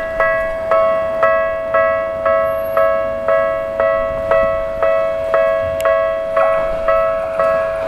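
Japanese railway level-crossing warning alarm: an electronic bell striking evenly about twice a second over a steady ringing tone. It signals that a train is approaching.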